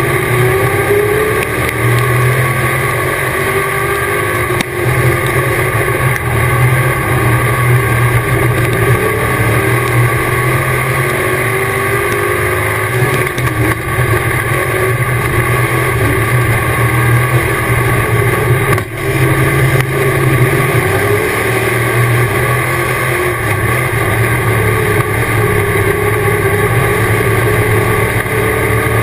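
Dirt-track race car engine heard from inside the cockpit at racing speed, its note rising and falling repeatedly as the driver gets on and off the throttle, over a steady rush of wind and noise; a brief drop about two-thirds of the way through.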